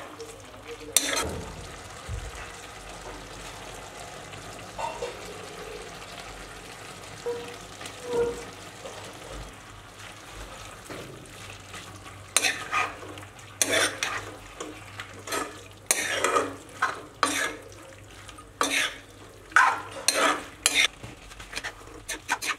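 Mushroom curry with potato and chana frying in a wok, sizzling, while a spatula stirs and scrapes the pan. The stirring is sparse at first; from about halfway on come quick, repeated scraping strokes, the loudest sounds here.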